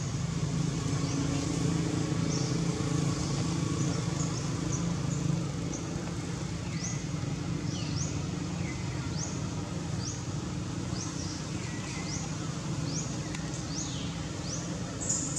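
Outdoor ambience: short, high, rising chirps repeated one or two times a second, with an occasional lower falling call, over a steady low hum that eases off a little about halfway through.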